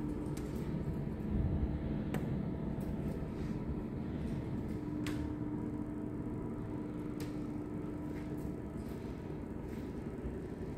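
Steady low hum and rumble of room noise carrying one constant droning tone, with a few faint clicks about two, five and seven seconds in.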